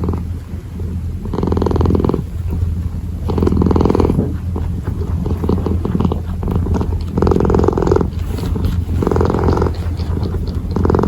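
Kitten purring close to the microphone, a continuous rumble that swells louder about every two seconds.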